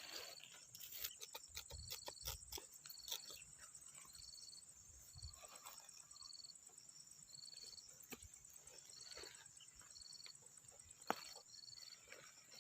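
Faint insects, likely crickets, chirping: a steady high pulsing buzz with short chirps repeating about once a second, and a few soft clicks scattered through.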